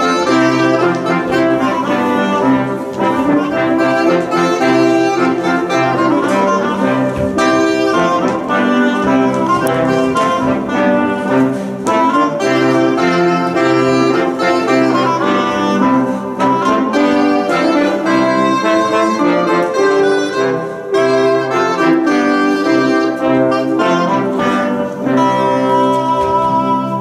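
Early-music ensemble playing live, led by a trio of trombones with violin and other period instruments. The music closes on a held chord near the end.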